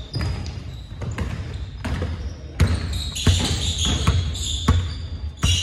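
Basketballs bouncing on a hardwood gym floor, a run of irregular thuds, with sneakers squeaking on the court from about three seconds in.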